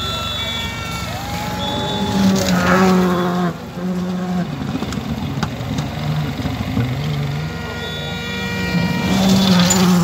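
Rally car engines revving hard on a gravel stage, pitch climbing and dropping with throttle and gear changes. The loudest moments are a car passing about two seconds in and another near the end.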